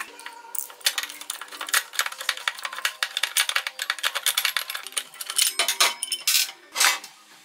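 Screwdriver working the screws out of a four-stroke brush cutter engine's metal clutch housing on a steel workbench: a quick run of small metallic clicks and clinks as screws come loose and drop, with a few louder clanks near the end as the housing comes off.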